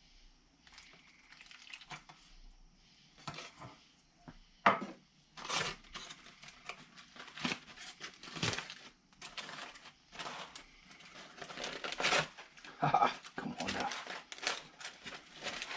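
Irregular clinks, knocks and crinkling from handling a freshly smoked pork butt in its pan with utensils, starting a few seconds in and getting busier, with one sharp clank about five seconds in.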